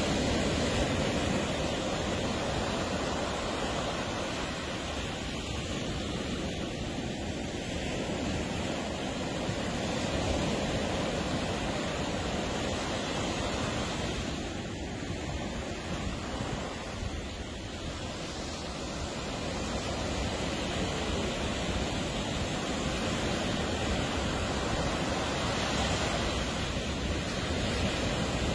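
Atlantic surf breaking and washing up a sandy beach: a continuous rushing hiss that eases off briefly twice and builds again.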